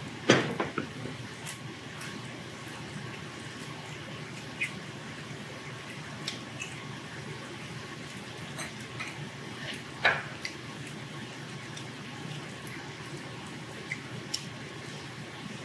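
A man slurping cold noodles (naengmyeon) from a steel bowl: a loud slurp just after the start, another about ten seconds in, and a few small short liquid sounds in between, over steady restaurant room noise.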